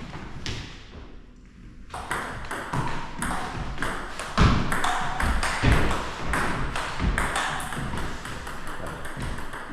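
Table tennis rally: a quick run of sharp clicks of the ball on bats and table, starting about two seconds in, with a couple of heavier thumps in the middle.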